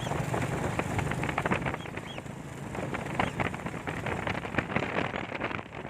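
A motor vehicle's engine running with a steady hum that fades about two seconds in, under crackling wind buffeting on the microphone.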